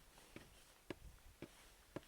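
Faint, evenly spaced knocks, about two a second.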